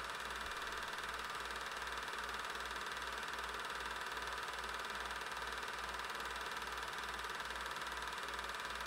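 Steady mechanical running noise with hiss and a low throb pulsing about three times a second, typical of an 8mm film projector running while the silent film is transferred.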